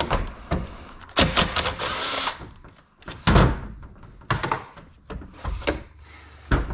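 Impact driver spinning for about a second, backing out hardware from a radiator and fan shroud assembly, with several knocks and clunks of parts and tools being handled around it; the loudest clunk comes about halfway through.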